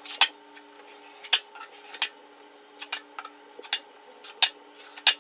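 Irregular sharp clicks and clinks, like small hard objects knocking together, about one every half second to a second, over a faint steady hum.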